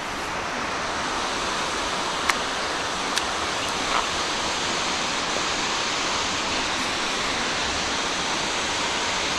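Steady rushing of water, an even hiss, with a few faint clicks about two, three and four seconds in.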